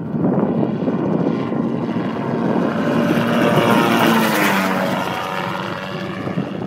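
Autogyro flying low overhead: the drone of its engine and pusher propeller grows louder, peaks about four seconds in as it passes, then drops in pitch and fades as it flies away.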